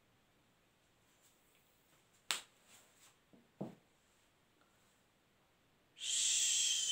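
Whiteboard marker being handled: a sharp click a little over two seconds in, a few faint ticks, and a second click about a second later as the marker is capped and set down on the table.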